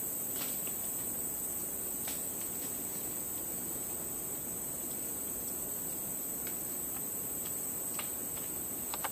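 Steady, high-pitched insect chorus: two constant shrill tones held without a break, with a few faint clicks scattered through.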